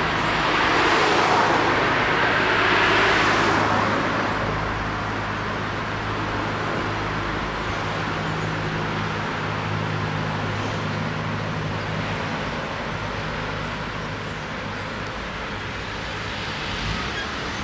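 Road traffic moving: a car drives past close by in the first few seconds, then a steadier traffic noise continues with a low engine drone from a lorry around the middle.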